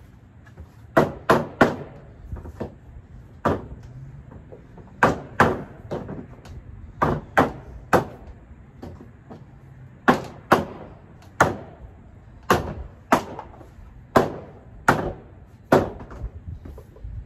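Hammer blows on a plastic shelving unit being assembled, knocking its parts together. About twenty sharp knocks, irregularly spaced and often in quick pairs or threes.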